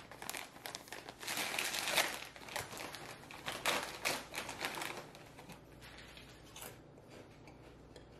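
Plastic snack bags crinkling as they are handled, a dense run of crackles for about the first five seconds, then fainter rustling.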